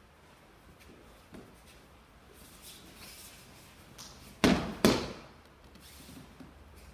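Aikido breakfall: two loud slaps on the mat about half a second apart as the thrown partner lands, a little past the middle.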